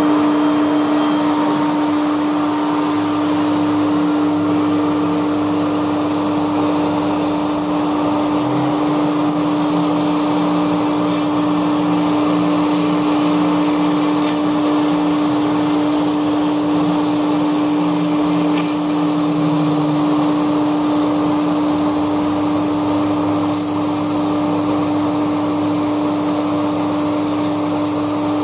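Laguna SmartShop II CNC router spindle running at a steady high pitch while cutting foam, over a continuous rushing noise. A lower hum joins about eight seconds in and drops away after about twenty seconds.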